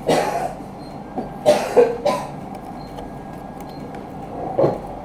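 A person coughing several times in short bursts: at the start, a cluster about one and a half to two seconds in, and once more near the end.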